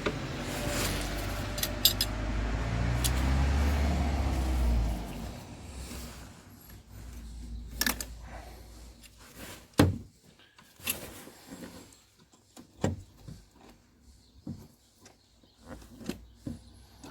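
Rustling handling noise for the first few seconds, then scattered sharp metallic clicks and knocks from hand tools and a hose clamp being worked on the van's turbo pipework.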